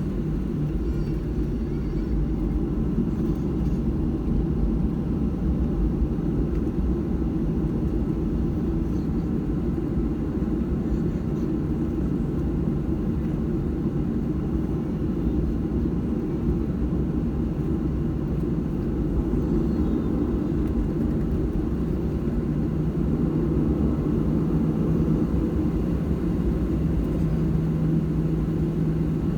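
Cabin noise of a Boeing 737-700 taxiing on its CFM56-7B jet engines at low thrust: a steady low rumble, with a steady hum that comes up near the start and again near the end.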